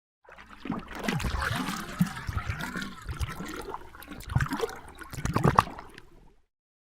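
Water splashing and gurgling in irregular sloshes, with louder splashes about two seconds in, again past the middle and near the end; it starts suddenly and dies away after about six seconds.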